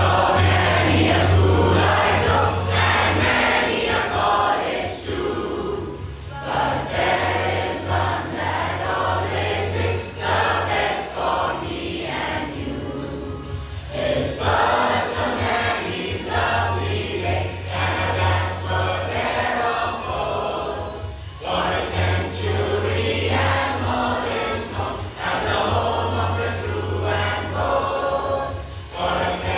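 Choir singing a song with musical accompaniment, a low bass note sustained under the voices and dropping out now and then.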